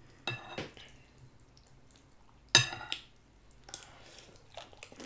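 Metal spoon clinking against dishware in a few separate, ringing clinks; the loudest comes about two and a half seconds in.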